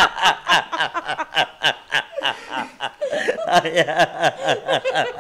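Several people laughing together, men and a woman, in quick rhythmic ha-ha pulses that keep going without a break.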